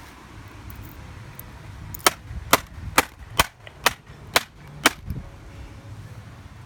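Seven sharp hammer blows on a MacBook laptop, evenly spaced at about two a second, starting about two seconds in.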